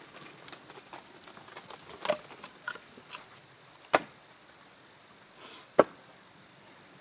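Split mixed-hardwood firewood being set onto a woodpile: sharp wooden knocks of piece against piece. There are a few lighter clunks and shuffling early on, then two loud knocks about four seconds in and near six seconds.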